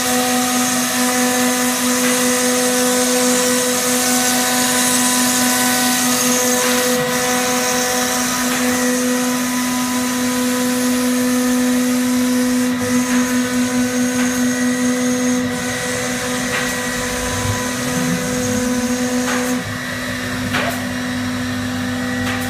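CNC router spindle running steadily at high speed while the bit cuts into a sheet, a steady high whine over a rushing noise. A few clicks near the end.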